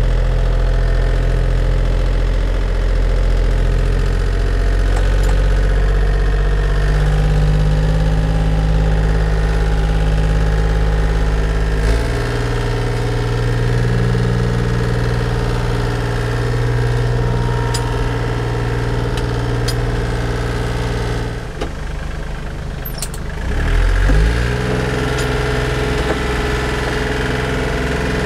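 Compact tractor engine running steadily while working the soil. Its note shifts about halfway through, drops briefly a little after two-thirds in, then rises and settles again.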